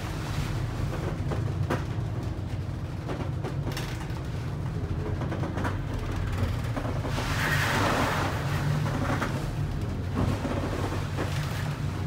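Inside a fishing boat's wheelhouse in a storm: the boat's engine drones steadily while heavy rain and sea spray lash the wheelhouse windows, with a few knocks and a louder rush of water against the glass about seven seconds in.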